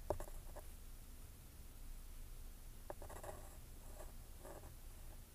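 Faint swishing and rubbing of an electric iron sliding over cotton fabric on an ironing board, in short strokes, with a light click just before three seconds in.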